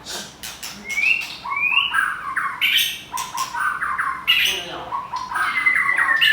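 White-rumped shamas singing against each other: quick, varied phrases of rising whistles mixed with sharp clicks and harsh scratchy notes, one phrase after another with short gaps.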